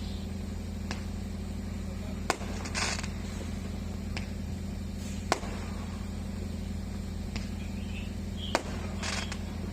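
Firecrackers going off as scattered single sharp cracks, about six in all, the loudest three falling roughly three seconds apart, with a short hiss after some of them, over a steady low hum.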